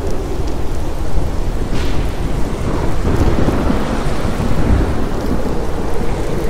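Thunderstorm ambience: steady rain over a continuous low rumble of thunder, with a short crackle about two seconds in.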